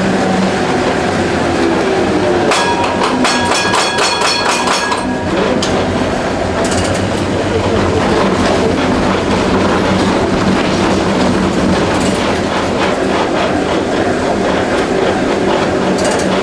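Historic tram running over street rails: a steady rumble and hum from the motors and wheels, with occasional sharp clicks. A bell rings rapidly for about two seconds a few seconds in.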